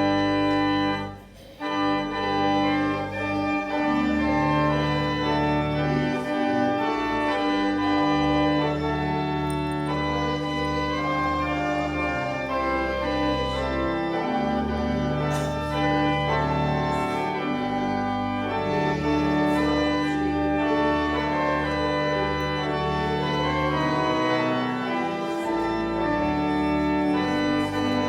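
Church organ playing a hymn or liturgical setting in long held chords over a sustained pedal bass, with a brief break about a second in before it carries on.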